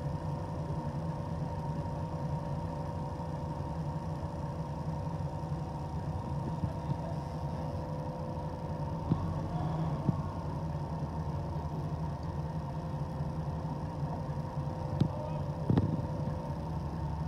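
Diesel engine of a truck-mounted crane running steadily with a low rumble and a steady hum, powering the crane that lifts a railcar bogie. A few clanks sound about halfway through and again near the end.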